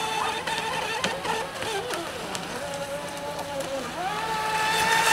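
Radio-controlled speedboat running fast, its motor whine holding one steady pitch, then dipping briefly and rising again as the boat turns about a second before the end.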